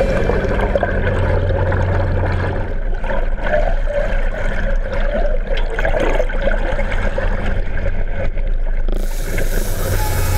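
Water sloshing and splashing, with a boat engine's steady low hum that drops away about two and a half seconds in and comes back near the end.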